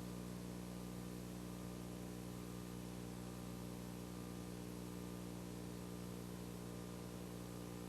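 Dead air on a television broadcast: a faint, steady electrical mains hum with a stack of overtones under an even hiss, with no program audio or alert tones.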